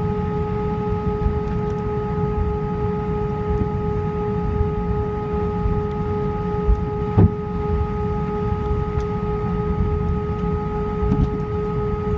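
Cabin noise of an Airbus A319 taxiing: a steady low rumble with a steady whine from the idling jet engines. There is a single thump about seven seconds in.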